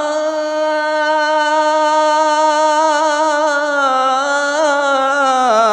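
A male naat khawan singing a manqabat, holding one long note on the last syllable of a line with a slight waver, the pitch dipping just before the end.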